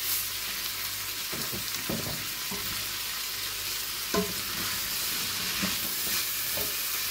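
Diced potatoes and onions sizzling in a stainless steel pot while a wooden spatula stirs them, scraping and knocking against the pot now and then. The loudest knock comes about four seconds in.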